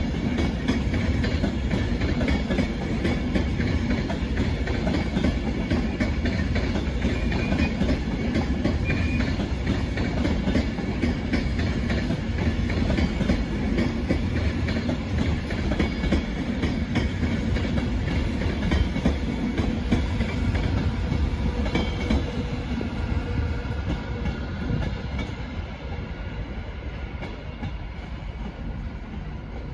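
Avanti West Coast passenger train running past on the far tracks, its wheels on the rails making a steady noise that fades over the last few seconds as it moves away.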